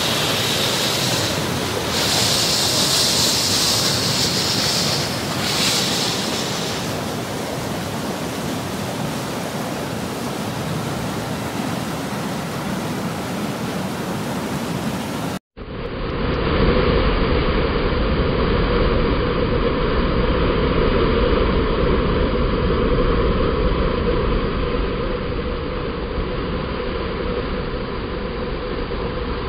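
Rushing whitewater of a mountain stream and waterfall pouring over rocks, a steady rush of water. About halfway through, the sound cuts out for an instant and comes back duller and deeper.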